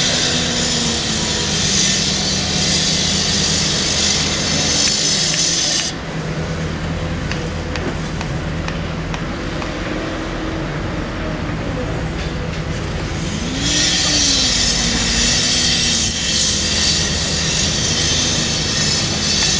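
Caterpillar 319C hydraulic excavator's diesel engine running steadily while it works its boom and bucket, the engine pitch rising and falling under hydraulic load. A high hiss over it drops out for several seconds mid-way, then returns.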